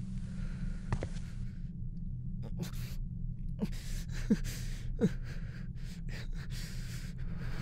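An injured young man gasping and breathing raggedly, with three short pained catches in the voice about halfway through, over a low steady drone.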